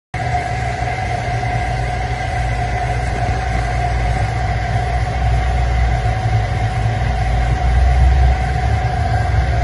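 Steady mechanical rumble with a constant hum over it, as from a motor or machine running.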